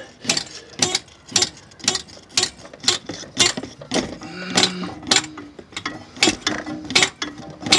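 Hammer lightly tapping a drill bit, metal on metal, in a steady run of sharp knocks about two a second, driving the bit into the clogged coolant return-line port of a VW 2.0 engine to clear the blockage.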